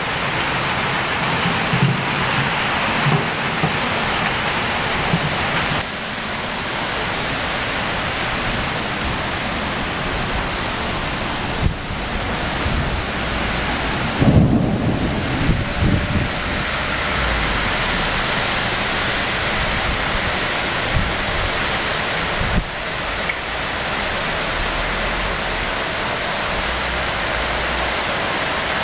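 Heavy rain pouring steadily, a dense hiss on leaves, cars and pavement, with a few deep low rumbles, the loudest about halfway through.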